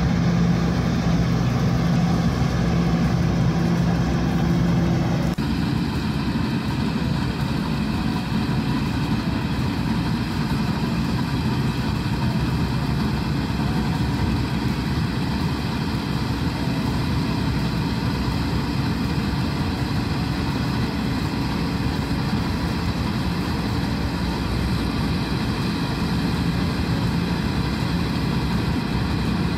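Claas Crop Tiger 40 combine harvester running steadily while cutting rice: its engine and header machinery working together. About five seconds in the sound changes abruptly, the steady hum giving way to a rougher running noise.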